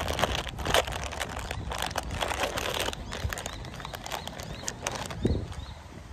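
Foil snack packet crinkling and crackling as it is torn open and handled, densest in the first three seconds and sparser after. A low thump comes a little past five seconds.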